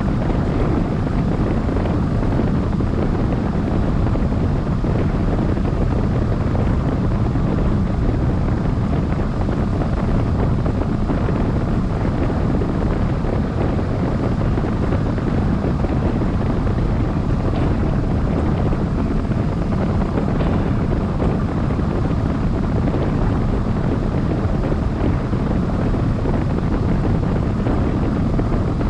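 Steady rush of airflow buffeting the microphone of a camera mounted on a hang glider's frame in flight, loudest at the low end and unchanging.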